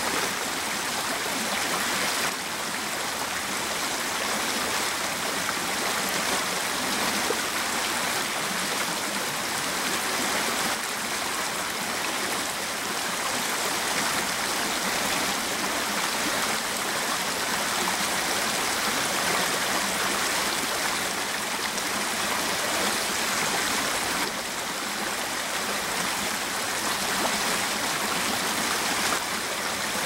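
Shallow brook babbling steadily as its water spills in a thin sheet over a fallen log lying across the stream.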